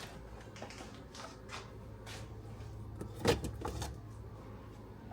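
Light clicks and knocks of household handling over a low hum, with one louder clunk a little past three seconds in.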